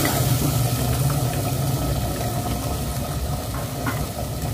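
Chicken frying in oil in a clay handi pot, a faint sizzle under a steady low hum, as yogurt is poured over it.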